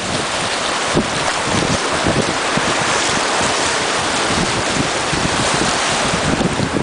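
Wind buffeting the microphone over the wash of small waves breaking in the shallows.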